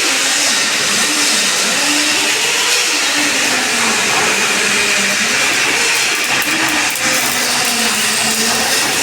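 Electric welding arc hissing and crackling steadily and loudly without a break.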